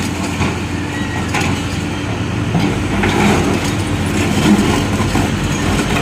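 Excavator's diesel engine running steadily at a low, even pitch, with scattered clatter and knocks from the clearing work.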